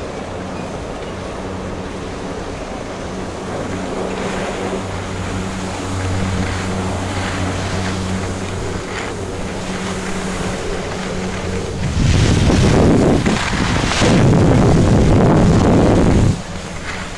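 Skiing on a groomed piste: a steady low mechanical hum over the hiss of skis on snow. About twelve seconds in, loud wind buffeting on the microphone takes over for about four seconds, then cuts off.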